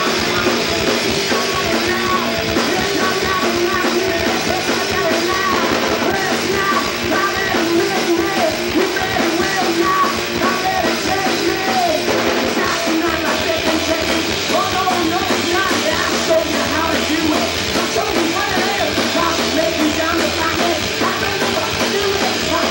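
Live rock band playing loudly: electric guitar, bass guitar and drum kit, with a singer's voice over the band.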